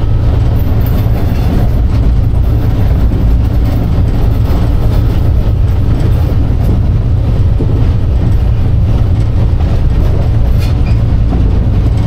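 Inside the cab of a Class 47 diesel-electric locomotive on the move: its Sulzer V12 diesel engine running with a steady, loud low rumble, mixed with the running noise of the wheels on the rails.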